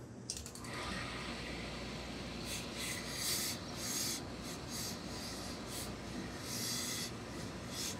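Hose-fed steam iron pressing a suit jacket: the iron rubs and slides over the cloth while steam hisses out in several short bursts.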